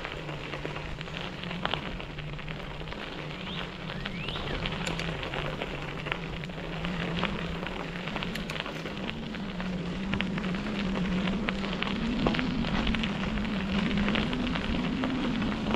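Bicycle tyres rolling over a dirt and grit trail: a steady crackle with scattered clicks, under a low hum that rises in pitch and gets louder in the second half.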